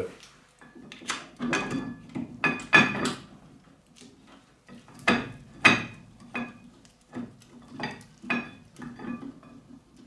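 Short metallic clinks and taps with a slight ring, about fifteen at irregular intervals, as a steel brake caliper, its shim and mounting bolt knock together while being fitted by hand to the front disc brake.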